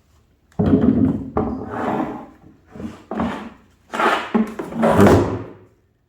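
A run of five rubbing, knocking handling noises, each with a sudden start and lasting half a second to a second, from working on the washer tub while its bearing housing is cleaned out.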